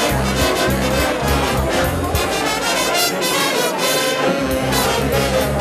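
Jazz band music with a brass section of trombones and trumpets playing over a moving bass line.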